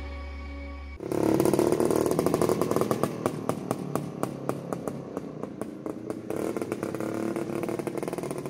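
Jawa 350 OHC motorcycle engine running with a rapid, uneven crackle of exhaust pulses. It takes over about a second in as background music cuts off.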